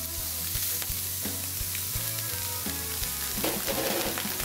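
Shrimp, rice and vegetables sizzling on a hot flat-top griddle, a steady hiss of searing.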